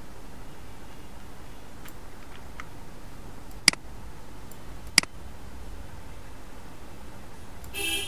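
Two sharp clicks of a computer mouse, about a second and a quarter apart, over a steady low hum, with a few faint ticks before them. A brief, louder noisy sound comes near the end.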